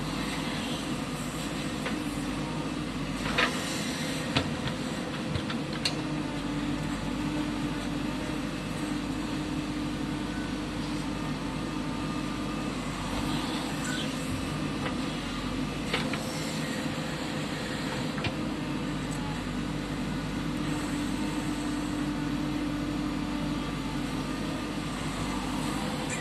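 Diesel engine of a JCB 3DX backhoe loader running steadily while it works, with a few short, sharp knocks scattered through.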